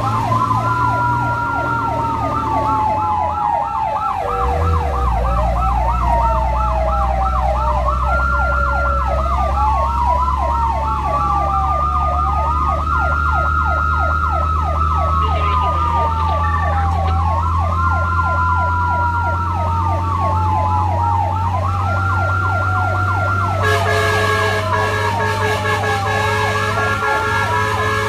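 Emergency vehicle sirens sounding together, a fast yelp sweeping up and down about three to four times a second over a slower wail that rises and falls every few seconds, with a steady engine rumble underneath. A steady higher tone joins in near the end.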